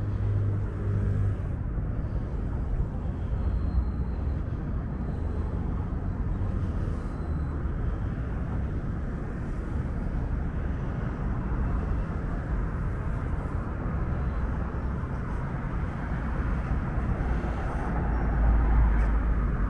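Street traffic: motor vehicle engines running and passing with a steady low hum, and a louder vehicle going by near the end.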